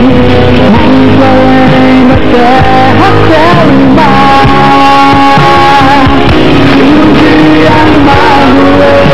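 Gospel band playing live: electric guitar and bass guitar over a drum kit, with a melody line that holds long notes.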